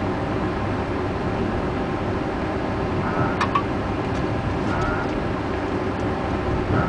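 Diesel railcar running along snow-covered track, heard from the cab: a steady engine and wheel rumble, with brief high squeals recurring every second or so and a quick run of clicks about halfway through.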